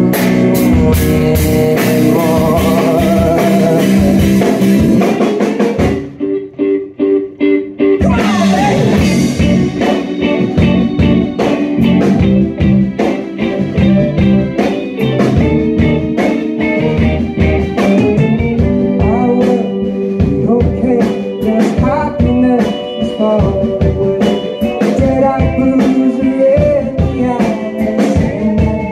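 Live rock band playing: two electric guitars, electric bass, drums and keyboard. About six seconds in the band drops to a few short stabs, then comes back in full with a cymbal crash about two seconds later.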